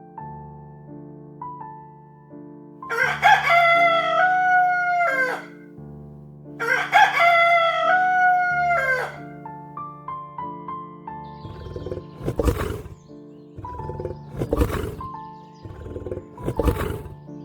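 Rooster crowing twice, each crow about two seconds long, over soft background piano music. From about two-thirds of the way in, a different rough, noisy call repeats about every two seconds.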